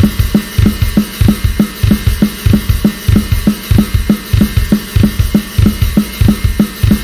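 Sampled acoustic drum kit from the Drum Daddy Kontakt library playing a steady, even beat, about four drum hits a second, under a constant wash of cymbals.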